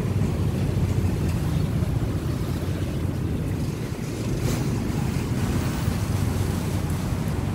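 Steady low outdoor rumble, with a faint click about four and a half seconds in.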